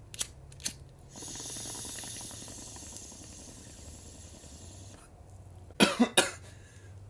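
Two sharp clicks, then a steady hissing, crackling draw of about four seconds as someone takes a hit of smoke, then three harsh coughs near the end.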